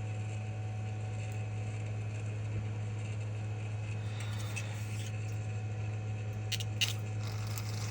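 A steady low hum with a faint higher tone above it, and a couple of light clicks about six and a half seconds in.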